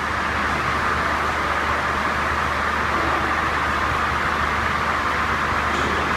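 SB-4V-550 log-squaring timber machine running steadily: an even whirring noise over a low hum, with no change in pitch.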